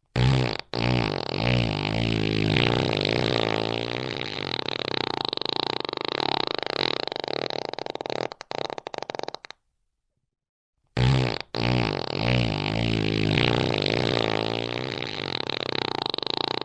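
Fart sound effect: a long, drawn-out buzzy fart wavering in pitch, with a short break just after it starts, sputtering out after about eight seconds. After about a second and a half of silence the same fart starts over.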